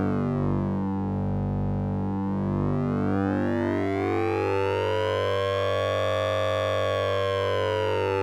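Synthesized sound effect made with the Orange Vocoder plugin: a steady low drone under a dense, many-toned synth sound whose upper tones sweep slowly down, rise to a peak about six seconds in, and start falling again.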